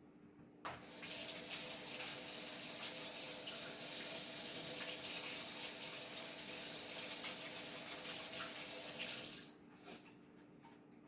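Kitchen tap running into the sink: a steady rush of water that turns on abruptly under a second in and shuts off about nine seconds later.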